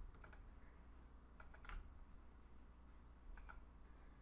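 Faint computer mouse button clicks, three quick press-and-release pairs about a second and a half apart, with an extra click just after the second pair, as files are selected and a right-click menu is opened.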